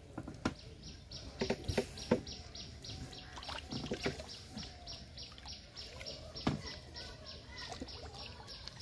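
Water splashing and dripping as a wet cast net is hauled hand over hand out of a pond onto a wooden boat, with a few sharper splashes. A rhythmic chirping, a few calls a second, runs in the background.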